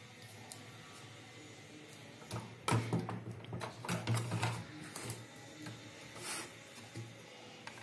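A 7.5 Ah battery being handled and set down into an open plastic UPS case: a run of knocks, bumps and scrapes starting about two and a half seconds in, with a few lighter clicks after.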